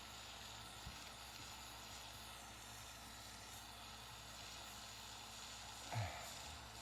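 Quiet, steady background room noise. A faint click comes about a second in, and a short sound falling in pitch comes near the end.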